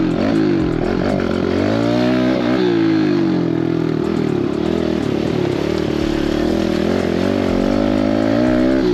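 Mini dirt bike engine revving up and down as the throttle is worked, then holding fairly steady revs through the second half.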